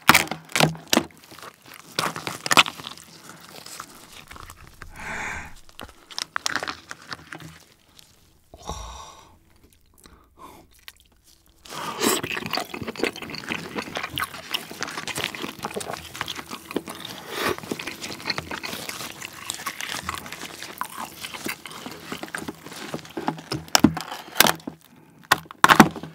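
King crab shell being cracked and pried apart by hand: sharp cracks at first, then a long stretch of dense crackling and crunching, with a few loud snaps near the end as the top shell comes away from the body.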